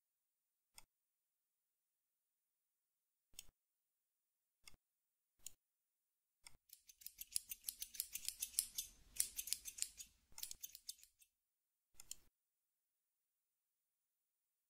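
Computer mouse clicking, a single click every second or so. Then a rapid run of ratcheting scroll-wheel clicks for about four seconds as the view is zoomed out, followed by a couple more clicks.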